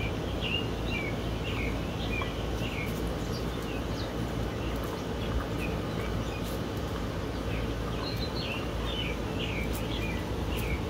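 Steady low outdoor background noise with a bird singing two runs of quick chirps, one near the start and one near the end. A few faint clicks come from a French bulldog puppy licking and crunching an ice cube.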